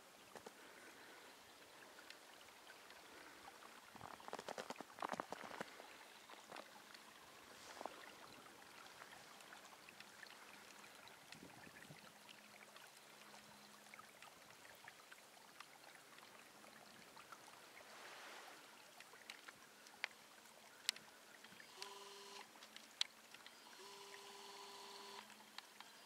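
Faint trickling of a small unfrozen stream flowing between snow banks, with a brief patch of crackling a few seconds in and a few sharp clicks and two short steady tones near the end.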